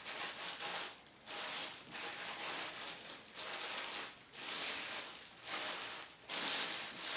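Wrapping around a trophy being torn and crinkled open by hand, in about seven rustling bursts with short pauses between them.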